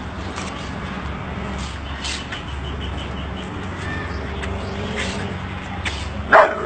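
One short, loud animal call near the end, over a steady low hum with faint scattered clicks.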